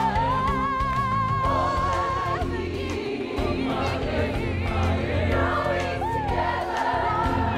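Musical-theatre song: a woman's solo voice holds a long note with vibrato for about two seconds, then the choir and band carry on over a steady beat.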